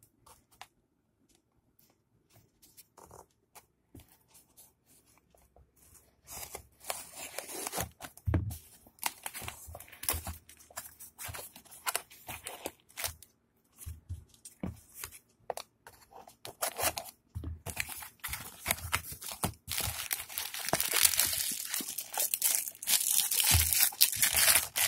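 Cardboard parcel being opened by hand: at first a pen scratching and poking at the packing tape with faint scattered clicks, then from about six seconds in, tape tearing and cardboard flaps rustling and crunching in irregular bursts. Near the end comes dense crinkling as clear plastic wrap around a bottle is handled and pulled out.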